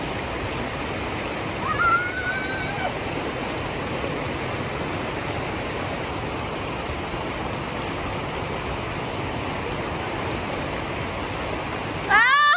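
Shallow rocky stream rushing steadily over stones. A brief high voice cries out about two seconds in, and a louder rising cry comes right at the end.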